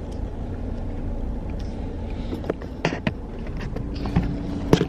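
Steady low rumble of a car's interior with the engine running, broken by a few sharp clicks and knocks about halfway through and again near the end. A faint steady hum comes in about four seconds in.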